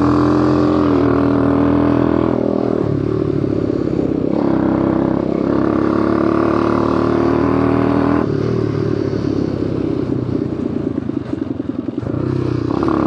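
HUMMER 125cc quad bike's engine running as it is ridden: on the throttle, easing off a couple of seconds in, back on the throttle, easing off again about eight seconds in, then a short burst of throttle near the end.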